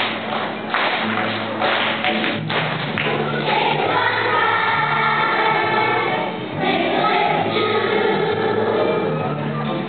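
Children's choir singing a song over instrumental accompaniment with a steady bass line. Sharp beats mark the first three seconds, then the voices come in sustained and loud.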